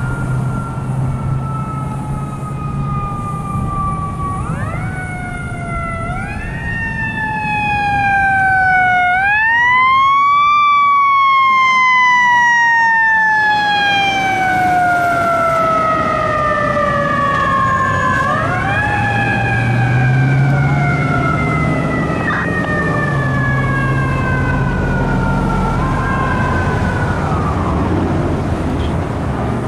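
Fire engine siren wailing. Its pitch swoops up quickly several times and then slides slowly down in long falls, with the low rumble of the truck and traffic underneath.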